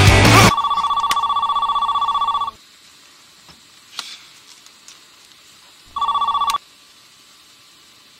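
Landline telephone ringing with an electronic warbling trill. There is one ring of about two seconds, then a second, shorter ring about three and a half seconds later. Rock music cuts off about half a second in, just before the first ring.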